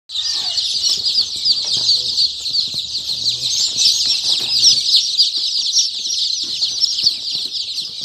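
A dense, continuous chorus of newly hatched local chicken chicks, a large crowd of them peeping at once with many overlapping high-pitched cheeps.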